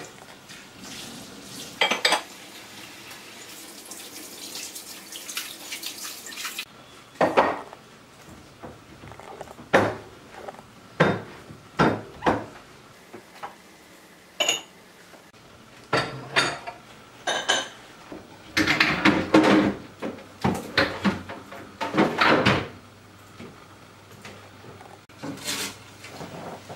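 Kitchen tap running into the sink, cutting off about six and a half seconds in. Cut-crystal dishes and a glass lid then clink and knock repeatedly against the sink and worktop as they are rinsed and set down.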